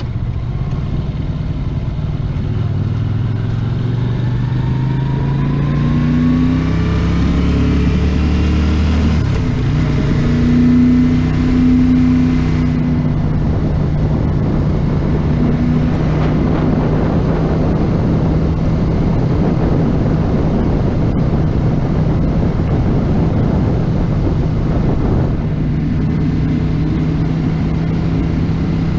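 A 1982 Honda GL500 Interstate's water-cooled V-twin engine heard from on the moving motorcycle. It accelerates with a rising pitch over the first several seconds, then runs at a steady cruise under a constant rush of wind and road noise.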